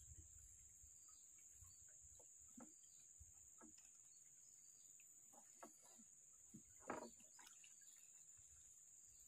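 Near silence: faint outdoor ambience with a steady high-pitched insect drone and a few short, faint calls or knocks, the loudest about seven seconds in.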